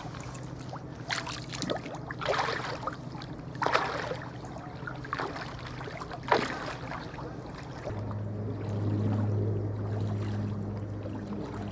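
Bare feet wading through shallow lake water at the shore, about five splashing steps, then a low steady hum comes in about eight seconds in.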